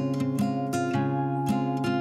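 Background music of plucked strings, sounding like an acoustic guitar, with notes picked in a quick, even pattern over a held bass.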